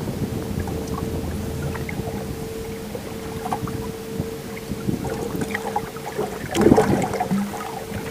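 Boat motor running steadily with a constant hum and whine, with scattered small knocks and a louder clatter about two-thirds of the way through.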